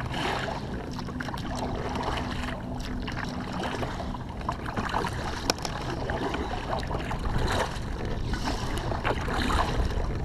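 Wind buffeting the microphone over water lapping, with scattered small knocks and clicks.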